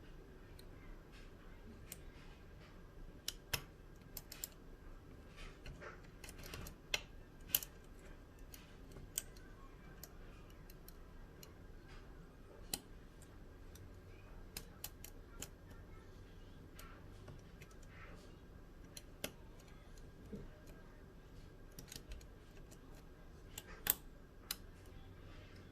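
A pin-tumbler lock being picked by hand: faint, irregular small clicks and ticks of the pick and tension wrench working the pins, with a few sharper clicks scattered through.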